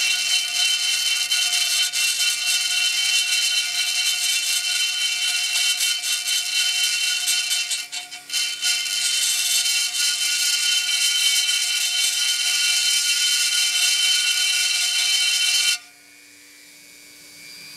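Dremel rotary tool running slowly with a carbide bit, grinding the rough casting of an aluminium motorcycle wheel: a steady high whine that eases off briefly about eight seconds in. Near the end it cuts off suddenly, and a faint low hum fades away.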